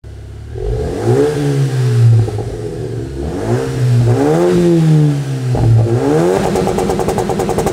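RAM Rampage R/T's Hurricane 4 2.0-litre turbocharged four-cylinder petrol engine being revved three times, its pitch rising and falling with each rev. The third rev breaks into a rapid stutter near the end.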